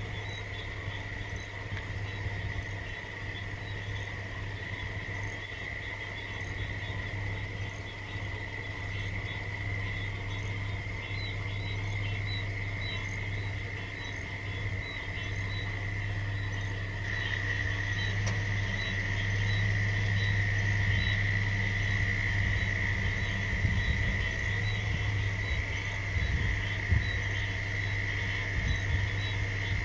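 A dense chorus of frogs calling at night: a steady high-pitched trill, with rows of short regular peeps above it, swelling louder about halfway through. Under it runs the low steady hum of a car engine.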